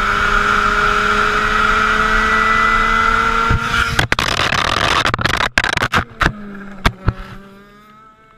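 Racing go-kart engine running at high, steady revs, then a run of sharp knocks and bangs from about four seconds in as the kart crashes off the track. The engine note carries on more quietly and fades out near the end.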